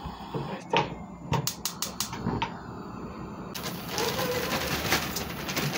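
A plastic bag being handled and opened: irregular light clicks, then steadier crinkling from a little past the middle.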